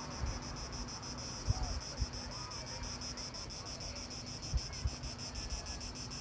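Cicadas buzzing in a high, rapidly pulsing chorus, with a few bumps of wind on the microphone.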